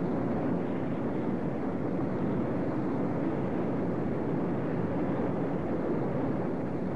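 Steady roar of an erupting lava vent, a flood of lava pouring out and plunging about 100 feet into a crater.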